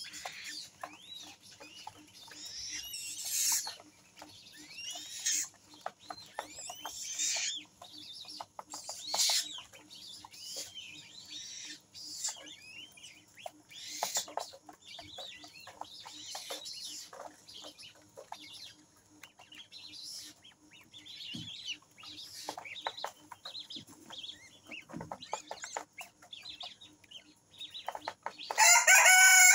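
Purple swamphen chicks peeping over and over, short high chirps and pitch glides. Near the end a much louder, longer bird call with a stack of clear tones breaks in.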